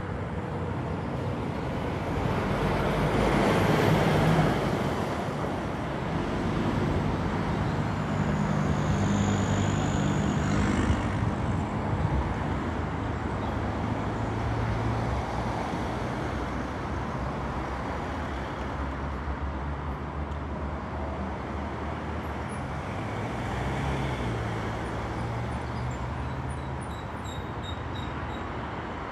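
Road traffic: motor vehicle engines running at low revs, with one vehicle passing loudest about four seconds in.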